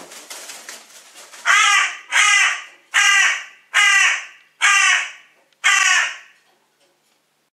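A crow cawing six times in a loud, evenly spaced series, each caw fading briefly. Softer rapid rustling comes before the first caw.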